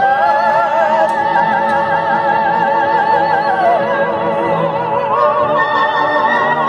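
A woman and a man singing an operatic duet, both holding long notes with wide vibrato, moving up to higher notes about five seconds in.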